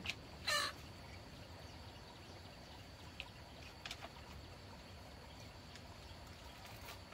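A chicken gives one short squawk about half a second in, followed by a few faint ticks over a steady low background.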